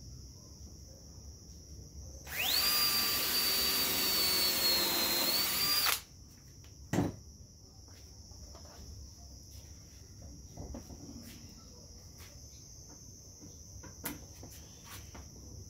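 Cordless impact driver running for about four seconds, driving a screw into a pine board, with a steady whine that cuts off suddenly. About a second later comes a single sharp knock.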